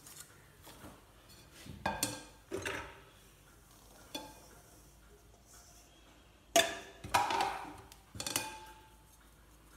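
A metal sieve and a stainless-steel mixing bowl knocking and clinking as flour is sieved: a handful of separate clanks with brief ringing, the loudest about two-thirds of the way through.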